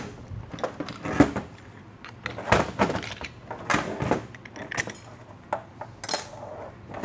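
Irregular metallic clicks, taps and clatter as a 48RE transmission valve body is taken apart with a screwdriver on a metal workbench, its parts and wiring being handled.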